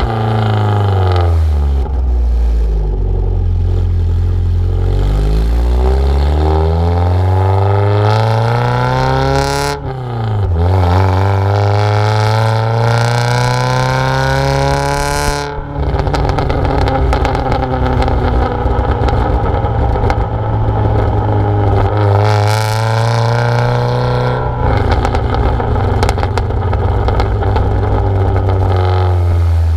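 Mazda Miata's four-cylinder engine through a decatted, modified exhaust, pulling hard: the note climbs through a gear, drops sharply at an upshift about ten seconds in, then climbs again. From about halfway it holds a steadier pitch with a rough, crackling edge.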